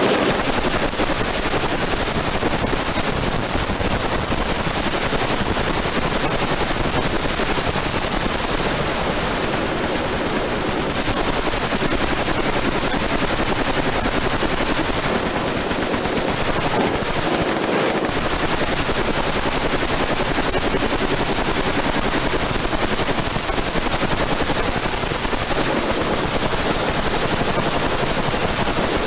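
Many machine guns firing at once: a dense, continuous rattle of overlapping automatic fire with no pauses.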